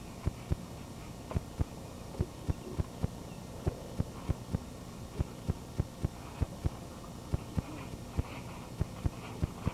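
A run of dull thuds, two or three a second, as people's knees, feet and bodies bounce and land on a backyard trampoline's mat.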